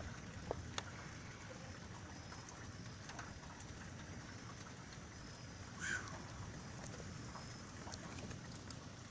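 Steady rain falling during a thunderstorm, with two sharp drip-like ticks about half a second in and a brief louder sound about six seconds in.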